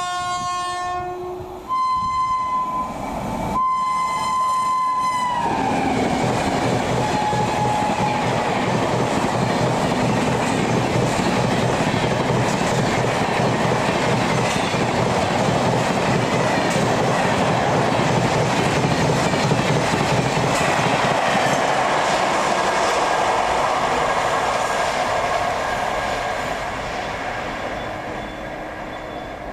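Express train approaching at speed and sounding its horn in three blasts, the last one dropping in pitch as the locomotive passes. The long train of coaches then rushes past with wheel clatter, fading away near the end.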